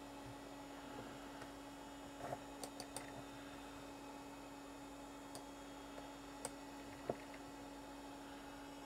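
Steady electrical hum, with several short sharp clicks of a one-button Apple mouse: a quick cluster of clicks between two and three seconds in, and single clicks later.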